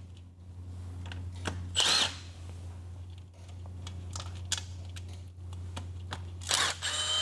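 Milwaukee Fuel cordless driver backing out the screws of a transmission's shift-detent cover in short whining runs, one about two seconds in and two more near the end, with small clicks of handling between them. A low steady hum sits underneath.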